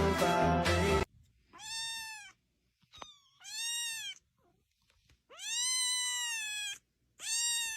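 Cat meowing four times, each meow rising and then falling in pitch, the third one the longest.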